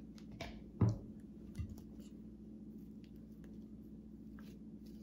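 A knife scraping peanut butter out of a jar and spreading it on a waffle: soft scrapes and light clicks, with a louder knock just under a second in.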